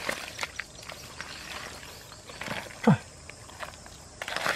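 Hands digging and squelching in wet mud, with scattered wet clicks and smacks and one loud squelch that drops in pitch about three seconds in.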